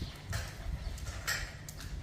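Dogs moving about in play: a few short scuffing or pattering sounds over a low rumble.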